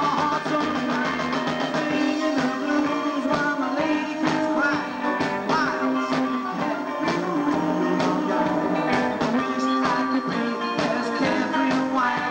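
Live rockabilly band playing: hollow-body electric guitar and upright double bass over a steady beat of sharp hits, with a man singing into the microphone.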